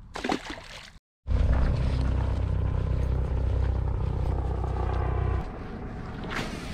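A small bass splashing back into the water as it is released. After a cut, heavy wind rumble buffets the microphone, easing about four seconds later.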